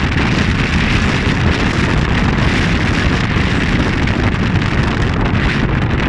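Wind buffeting the camera's microphone: a steady, loud rumble and hiss.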